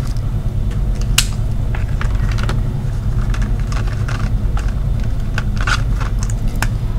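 Scattered small clicks and light clatter of felt-tip markers being capped and handled, with one sharp click about a second in, over a steady low hum.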